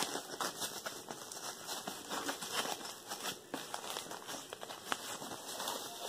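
White packing wrap around a handbag's shoulder strap crinkling in irregular crackles as it is handled and unwrapped.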